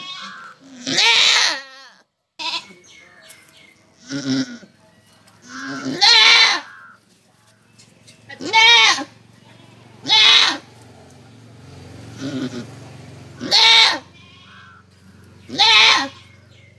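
Doe goat in labour bleating over and over, about eight quavering calls roughly two seconds apart, as she strains to deliver her kid.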